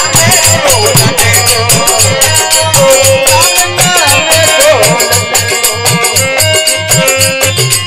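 Rajasthani folk bhajan music: a dholak drum keeping a fast, steady beat under a harmonium melody, with jingling hand cymbals marking time.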